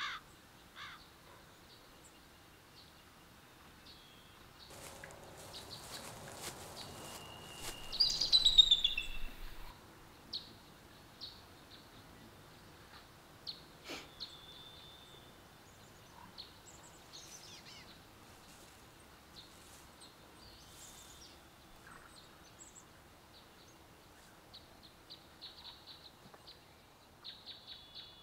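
Woodland ambience: scattered short bird chirps and calls over a faint background hiss. About five seconds in, a louder rush of noise rises and fades out near ten seconds, with a burst of quick falling bird calls near eight seconds as the loudest moment.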